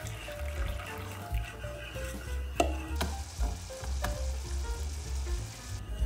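A whisk stirs in a stainless steel bowl as milk is poured in, with light clicks. About three seconds in, sugar syrup with a cinnamon stick boils in a saucepan with a steady bubbling hiss that stops shortly before the end. Soft background music runs underneath.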